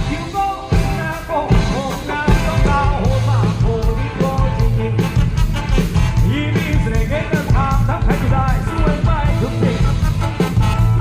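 Live Thai ramwong dance band playing, a singer's voice over a steady drum beat.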